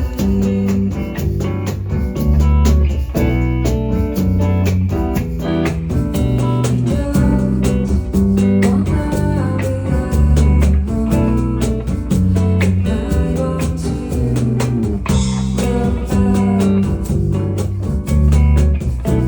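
Live band playing an acoustic arrangement: guitar over a steady bass line and drums.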